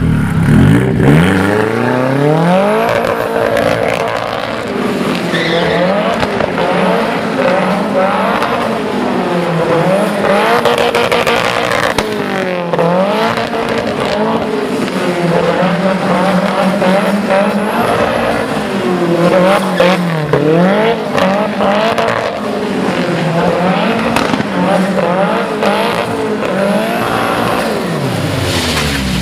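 A small hatchback's engine is driven hard through a timed cone course. It climbs steeply in revs off the start, then the revs rise and fall again and again as the car accelerates and backs off between the cones.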